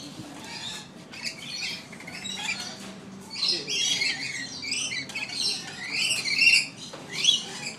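Lorikeets' shrill screeching and chattering calls, sparser at first and busiest from about three and a half seconds in.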